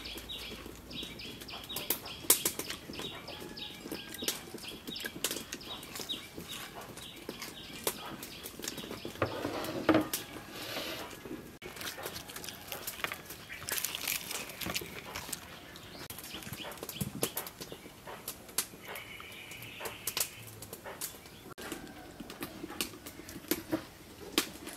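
Close-up crunching and chewing of crispy deep-fried battered chicken wings as they are bitten and pulled apart: many irregular sharp crackles in quick succession, with a few louder crunches.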